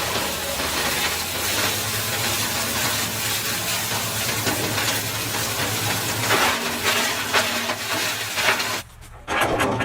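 Wood chipper running: a steady low engine hum under a continuous crackling hiss, cutting off sharply about nine seconds in, followed by a few short clicks.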